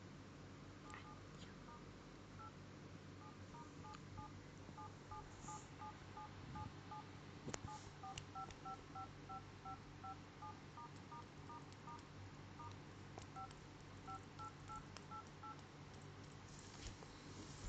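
Smartphone dial-pad touch tones: a long irregular run of short two-note beeps, about two or three a second, as the keys are tapped one after another, with one louder click partway through.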